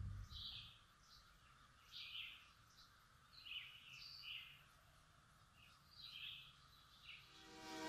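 Faint, scattered bird chirps against quiet outdoor ambience. Near the end a train horn begins to sound, growing louder.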